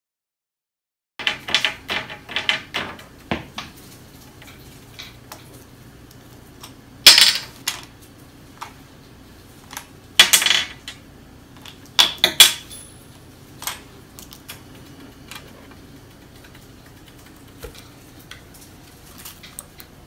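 Small plastic toys and lids clicking and clattering against a glass tabletop and a plastic tub as a budgerigar handles them. The clinks come in scattered clusters, with a quick run in the first few seconds and louder rattles about seven, ten and twelve seconds in.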